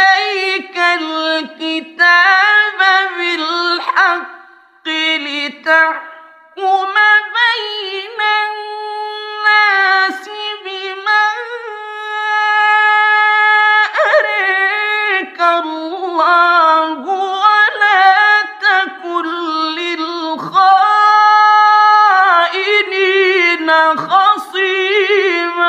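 A man's voice reciting the Quran in a high, melodic chant, holding long ornamented notes that waver up and down, with a few short breaks for breath.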